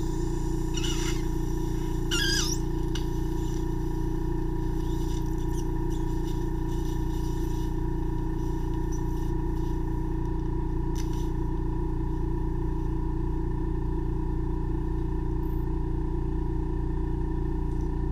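Ear microsuction: the suction unit's steady hum and hiss, with short high squeaks about one and two seconds in as the suction tip draws on wax in the ear canal.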